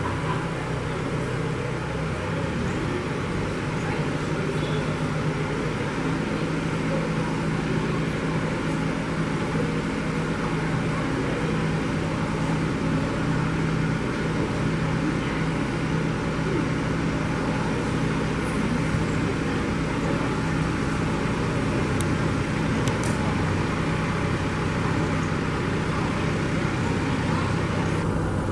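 Diesel engine of a John Deere utility tractor running steadily at low throttle as it pulls a wagon slowly.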